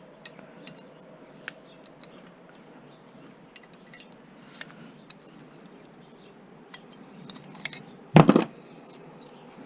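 Light clicks and taps of a small steel box and its brass fittings being handled and worked on, with one loud, brief clatter about eight seconds in.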